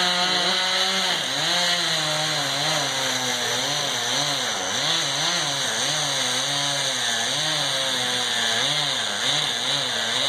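Chainsaw cutting into a dead pine trunk, its engine running hard with the pitch dipping and rising over and over as the chain bites and frees in the wood.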